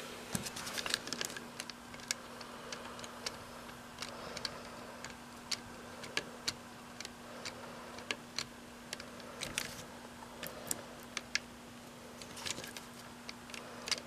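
Scattered light clicks and taps at an irregular pace over a faint steady low hum, as from handling a small model car and the camera.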